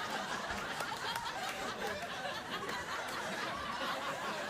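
Studio audience laughing, a dense continuous crowd sound.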